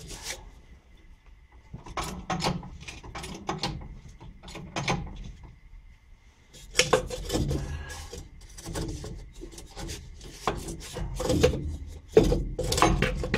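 Repeated scraping, creaking strokes, about two a second with a short pause midway, as a small jack is pumped to compress the truck's front coil spring.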